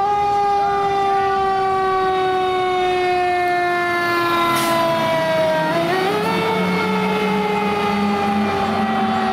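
Fire engine siren winding up, then slowly winding down. It winds up again about six seconds in and slowly falls off once more.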